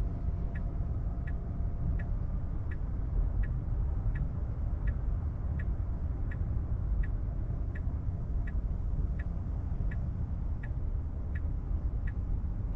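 Tesla Model 3 turn-signal indicator ticking evenly, about three clicks every two seconds, over a low steady cabin rumble.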